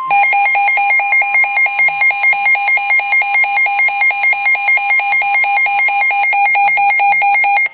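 Weather radio receiver's alert alarm sounding rapid, evenly pulsed beeps that stop abruptly at the end, signalling a received severe thunderstorm warning.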